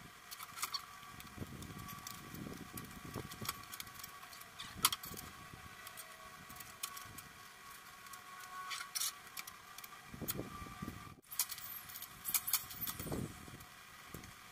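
Scattered light knocks and clicks from handling a wooden wall frame, with one sharper click about five seconds in, over a faint steady hum.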